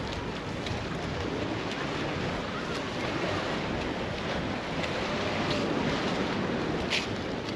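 Surf washing onto the beach, with wind buffeting the microphone, and a brief sharp click near the end.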